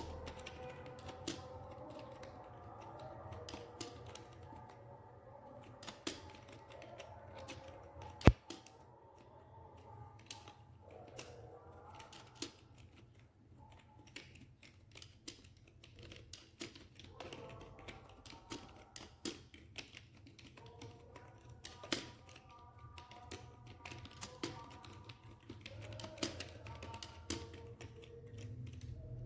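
Typing on a computer keyboard: irregular, uneven keystroke clicks, with one sharp, much louder click about eight seconds in.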